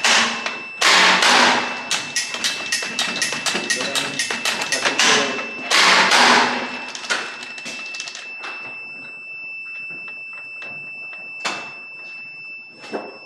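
Quick run of metallic clicks and knocks from hands working a switchgear panel's breaker mechanism, with two louder rattling bursts about a second and six seconds in, then only scattered clicks. A steady high-pitched tone sounds underneath throughout.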